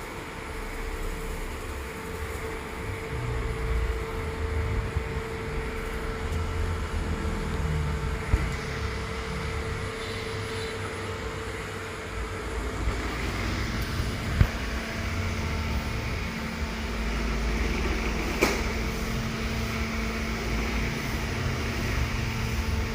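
Robot vacuum cleaner running: a steady motor hum with a low rumble, dropping to a lower pitch about halfway through, with three sharp knocks along the way.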